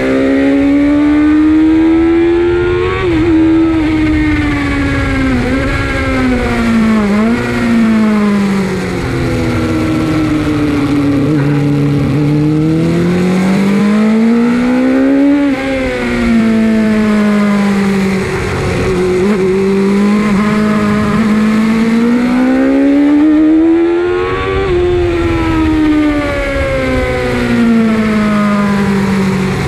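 Suzuki GSX-R 750 SRAD's inline-four engine heard from onboard at speed, its pitch climbing under throttle and falling off again several times as the rider accelerates and slows for the corners. A steady rush of wind noise on the microphone runs beneath it.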